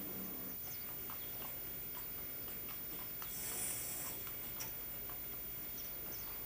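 Horse-drawn cart going by on a street: faint, irregular clops and knocks of hooves and wheels over a steady hiss. A brief high-pitched squeak comes about three and a half seconds in.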